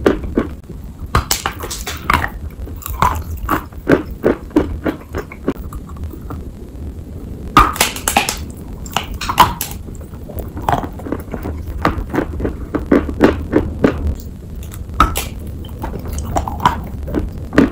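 A person biting and chewing a block of dry chalk: irregular crunching and crackling, loudest where a bite is taken a little before the middle, over a low steady hum.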